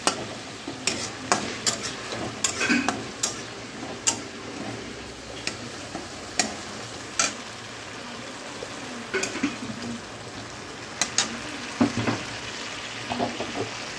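Spiced onion-tomato masala frying and sizzling in a metal kadai while a metal spatula stirs it, scraping and clicking against the pan at irregular moments. The masala is being cooked down until it turns reddish.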